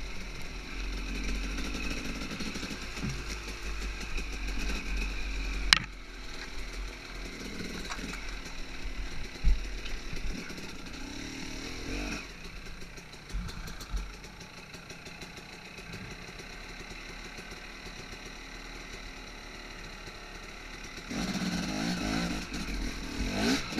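Enduro dirt bike engine running under load along a rough forest trail, the revs rising and falling with throttle, with a sharp knock from the bike about six seconds in. The engine note drops to a quieter, steadier run in the middle, then picks up and climbs near the end.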